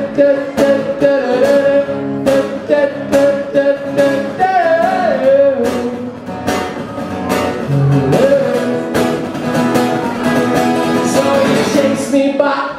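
Live solo male voice singing long held notes over a steadily strummed acoustic guitar.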